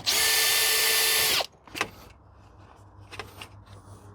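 Electric drill-driver running steadily for about a second and a half, then stopping, followed by a few faint clicks. It is backing out a fastener.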